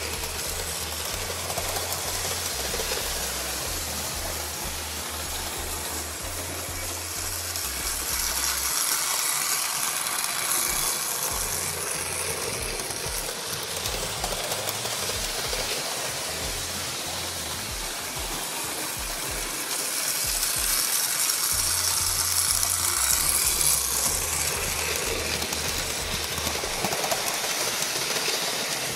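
Lionel 2035 toy steam locomotive pulling freight cars on three-rail O-gauge track: a steady whirring rattle of motor and wheels, swelling louder twice as the train passes close.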